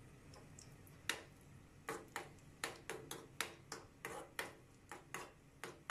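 About a dozen light, sharp clicks and taps at uneven intervals, the first about a second in the loudest: a metal spoon knocking against a pan while black raisins are stirred in ghee.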